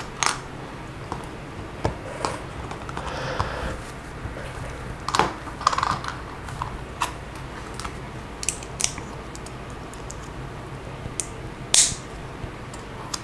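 Lego bricks being picked out of a pile and snapped together: scattered, irregular sharp plastic clicks, with a little rustling of loose pieces about three seconds in.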